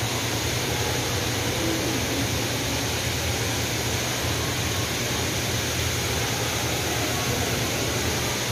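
Decorative water cascade, water running steadily down a stone wall with an even, unbroken rush.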